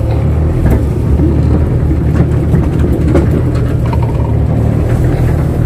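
Kato crawler excavator's diesel engine running steadily, with a few light knocks over it.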